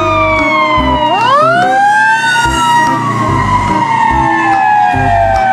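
Fire-engine wail siren: a falling tone, then about a second in a quick rise followed by one long, slow fall.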